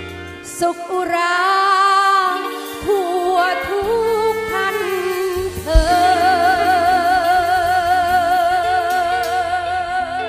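A woman sings into a microphone with strong vibrato over a live band. In the second half she holds one long, wavering note.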